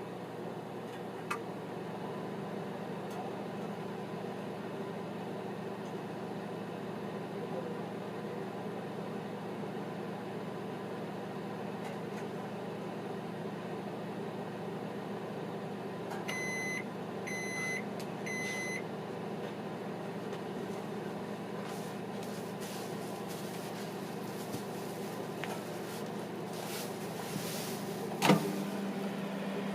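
Microwave oven running with a steady hum. About halfway through it beeps three times, yet the hum goes on. Near the end there is a sharp click, after which the hum continues with a stronger low tone, as this faulty oven keeps operating when it should stop.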